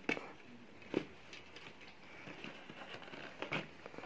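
Handling noise of cardboard packaging as a plastic RC rock crawler is worked free of its box insert: light scraping and rubbing with a few sharp knocks, one about a second in and another near three and a half seconds.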